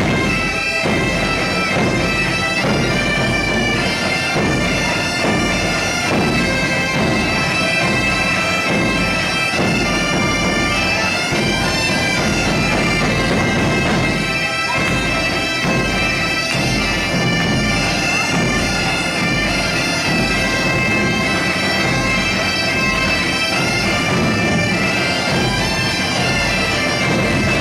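Several Portuguese bagpipes (gaitas de foles) playing a folk tune together over their steady drone, with a bass drum and snare drum keeping the beat.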